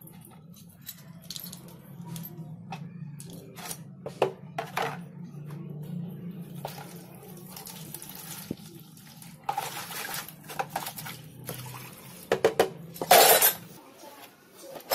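Water from a hose splashing into a plastic tray, with knocks and clatter of the tray and metal being handled. A low steady hum runs beneath and stops near the end.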